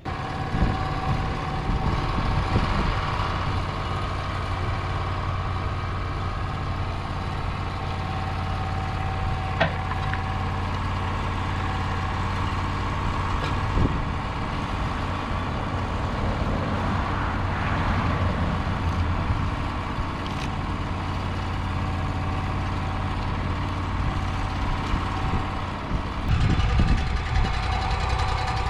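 Engine running steadily at an even speed, with a couple of brief knocks.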